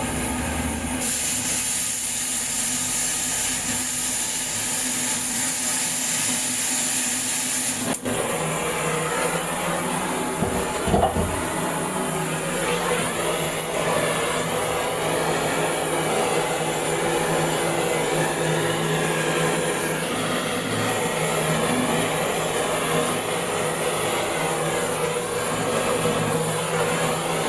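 Steady loud mechanical noise with a hiss, from tube-removal work on an industrial water heater. The sound changes abruptly about eight seconds in, and a short louder knock comes a few seconds later.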